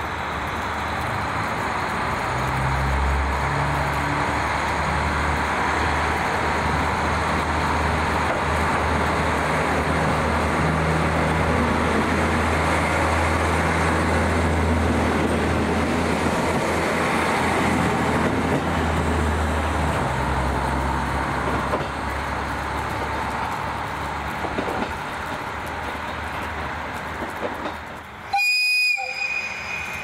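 A commuter train running along the platform at close range: steady rolling and wheel noise over a low hum that shifts pitch in steps. Near the end the sound cuts off abruptly, and a brief high tone follows.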